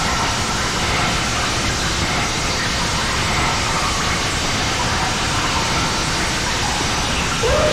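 Lo-fi dark ambient cassette recording: a dense, steady rushing noise with faint held tones drifting above it.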